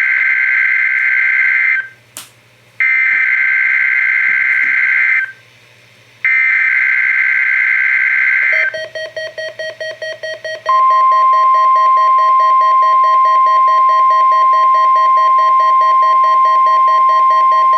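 NOAA Weather Radio SAME alert header: three bursts of screeching digital data tones, each about two and a half seconds long with short gaps between. Then a rapid beeping alert, about five beeps a second, joined about two seconds later by the steady 1050 Hz warning alarm tone.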